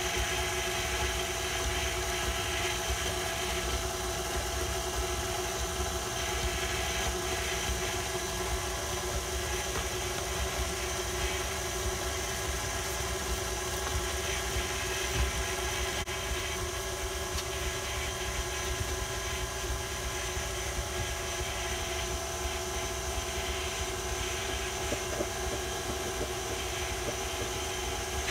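KitchenAid Classic Plus stand mixer running at a steady speed, its wire whip beating cake batter in a stainless steel bowl, with a constant motor hum and whine.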